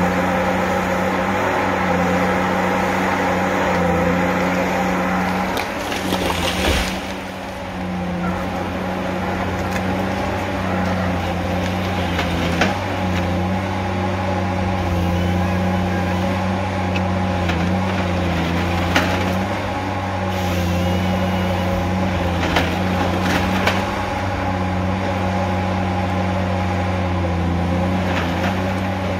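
Tigercat H822C tracked harvester's diesel engine running steadily under hydraulic load while its Log Max 7000XT head swings down and grips a white pine log. A few sharp knocks and cracks sound at intervals.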